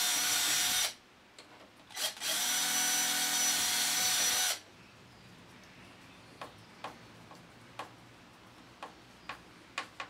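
Power drill with a small bit drilling new fixing holes in the edge of a uPVC door for a replacement multipoint lock, running in two bursts: one that stops about a second in, another from about two to four and a half seconds. After that, a few sharp clicks as the lock's faceplate screws are turned in with a hand screwdriver.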